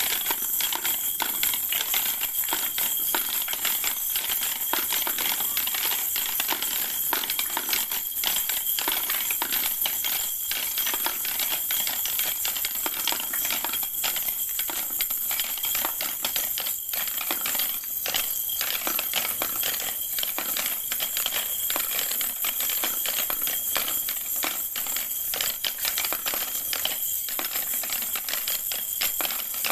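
Hard plastic balls rolling and clattering down the spiral ramps of a plastic ball-drop tower toy, a steady, dense rattle of clicks and knocks.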